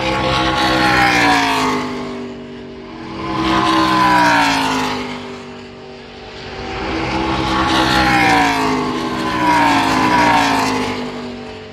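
ARCA Series stock cars' V8 engines passing at racing speed, four cars one after another. Each engine note swells as the car approaches, then falls in pitch as it goes by.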